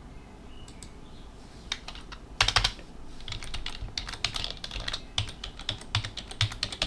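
Typing on a computer keyboard: a quick run of keystrokes that starts about two seconds in, after a quieter opening with only a few faint clicks.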